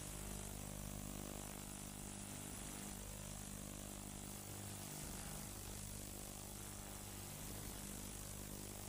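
Steady low hum with hiss from analogue video-tape playback; the picture shows heavy tracking noise.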